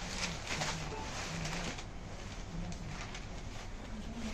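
Silk saree being unfolded and spread out by hand, the cloth rustling in short strokes, with short low tones repeating several times in the background.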